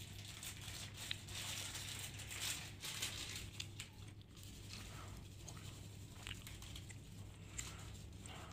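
Plastic sachet of washing powder crinkling and tearing as it is opened and handled, over a steady low hum.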